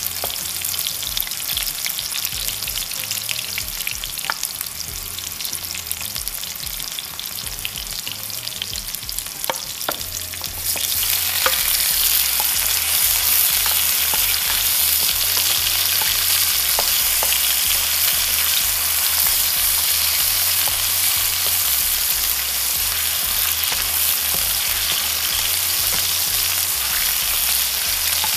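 Onion, ginger and garlic sizzling in hot oil in a pot, with a plastic spoon stirring and now and then clicking against the pan. About ten seconds in, the sizzle jumps louder as tomato wedges go into the oil.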